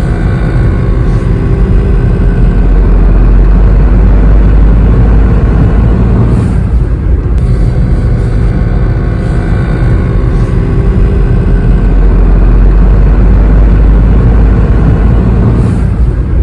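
In-cabin driving noise of a Honda S660, a loud steady low rumble of road and its mid-mounted 660 cc turbocharged three-cylinder, with a buzzing rattle from behind the passenger seat: an abnormal noise the car has had since delivery.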